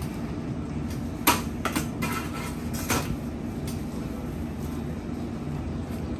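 Sandwich shop background noise: a steady low hum with a few short, sharp clatters, the loudest about a second in and another about three seconds in.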